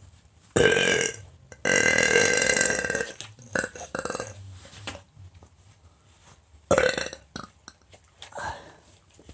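A person burping repeatedly: a short burp, then a longer one lasting about a second and a half, a couple of brief small ones, and another short burp about seven seconds in.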